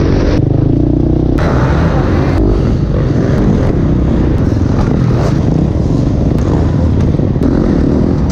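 Dirt bike engine running hard and revving, heard from close up on the bike, cut in short clips that change abruptly about once a second.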